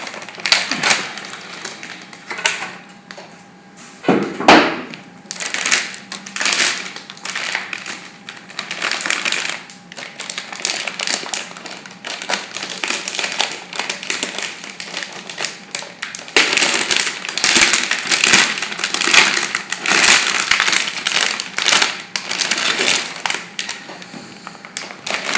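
A motherboard's packaging being opened and handled: irregular crinkling and rustling of plastic and cardboard, with a few sharp knocks, the loudest about four seconds in.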